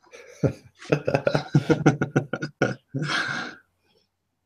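A man's voice comes over a webinar call line, muffled and choppy, with no words clearly made out. About three seconds in there is a short burst of breathy hiss.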